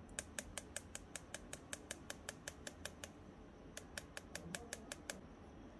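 Miniature mesh sieve being tapped by fingers to sift flour into a small steel bowl: quick light ticks, about five or six a second, in two runs with a short pause a little past the middle.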